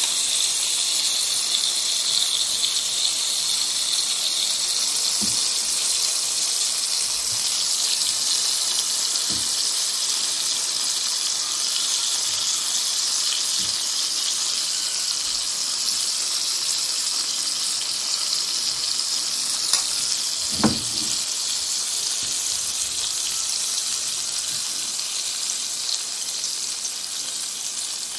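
Oil sizzling steadily in a frying pan as egg and flour batter fries inside tomato rings, with a few light knocks of a spoon against the pan and bowl.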